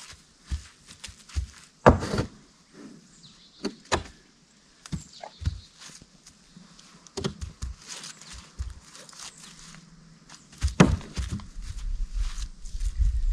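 A horse's hooves knocking on a wooden pallet as it steps onto it: a few separate hollow thunks spaced a second or more apart, the loudest about two seconds in and near the end.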